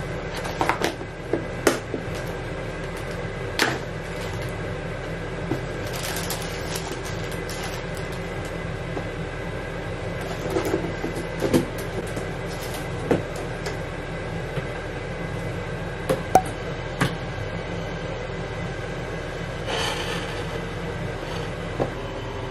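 Light clicks and taps as cookies and a plastic container are handled and set down on a ceramic plate, over a steady mechanical hum.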